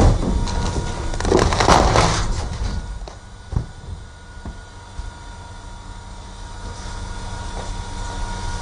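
Rear-loader garbage truck's hydraulic packer blade crushing a seat in the hopper: loud cracking and crunching for the first two and a half seconds, then the packer mechanism running on with a low hum, a steady whine and a few single knocks.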